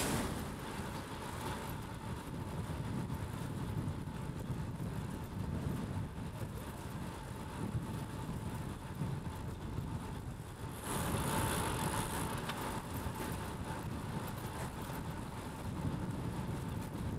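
Road traffic heard from a moving bicycle: a steady rumble of cars going by, with a louder hiss about eleven seconds in.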